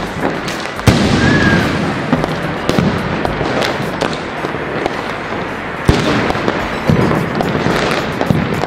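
Diwali firecrackers going off all around: a continuous crackle of many bangs, with a few louder sharp bangs about a second in and several more in the second half.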